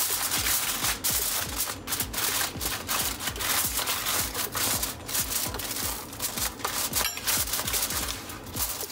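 Aluminium foil crinkling and crackling as two layers are pressed and crimped tightly around the rim of a roasting pan, over background music with a steady low beat.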